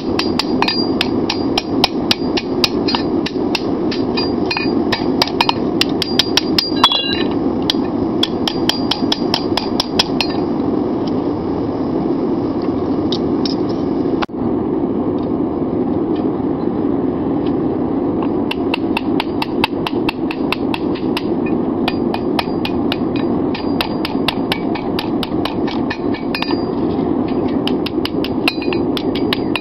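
Hand hammer striking a hot 5160 steel bar on an anvil in a quick run of ringing blows, forging the socket of a seax blade. The blows thin out and break off briefly near the middle, then resume, over a steady low rush.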